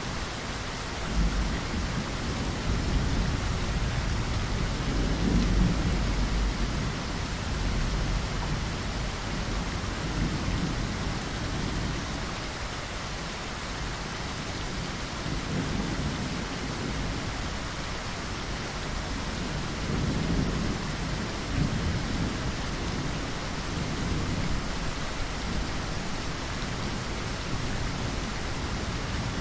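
Steady rain falling, with low rolls of thunder swelling and fading several times underneath, the strongest in the first several seconds.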